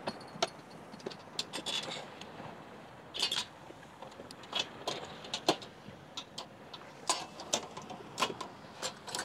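Irregular sharp clicks and light clinks, about two dozen at uneven spacing, a few with a brief rattle after them, over a faint steady background.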